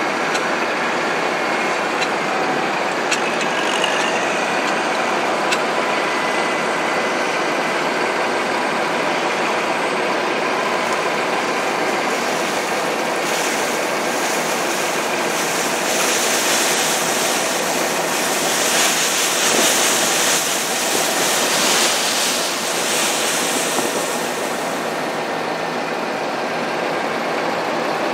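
Tractor engine running steadily as a dump wagon's box tips up. About halfway through, a rushing hiss of chopped corn silage sliding out of the wagon swells for several seconds, then fades.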